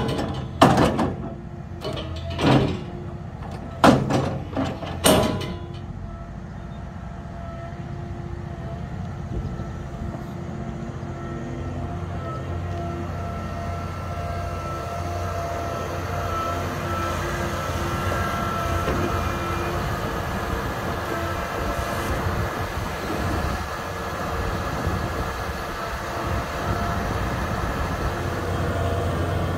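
Caterpillar 563C feller buncher's diesel engine running steadily with a low hum and a faint steady whine. Several loud knocks come in the first five seconds.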